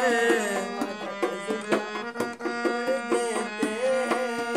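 Harmonium playing a melody between sung lines of a ghazal, with a dholak beating a steady, quick rhythm under it.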